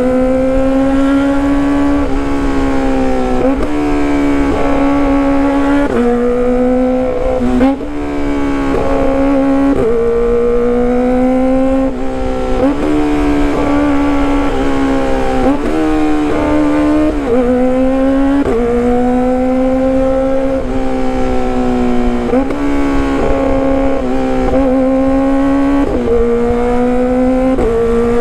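Kawasaki ZX-25R's 250 cc inline-four engine running through a loud exhaust under way, a high steady note that repeatedly dips sharply and climbs back every second or two.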